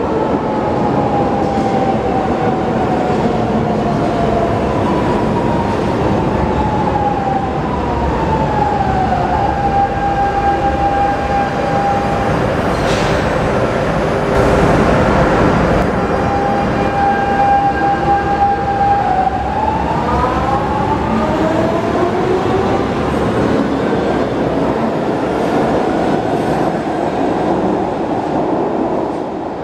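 Lisbon Metro electric train running through an underground station over a steady rumble of wheels on rail. The motor whine falls in pitch as the train brakes into the platform and holds a steady tone near the stop. The whine later climbs in pitch again as a train pulls away.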